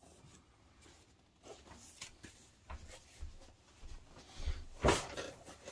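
Someone moving about and handling a cardboard shipping box: scattered soft thumps and rustles, with one sharp knock about five seconds in, the loudest sound.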